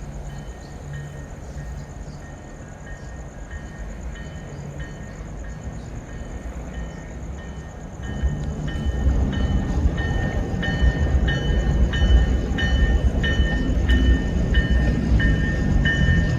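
Double-headed diesel locomotives of a Tri-Rail train running at the station, their low engine rumble growing louder about halfway through. A bell rings steadily over it, about three strikes every two seconds.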